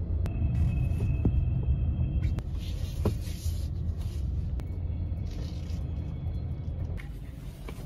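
Low rumble of a car's engine and road noise heard from inside the moving car, changing abruptly a few times and easing off near the end.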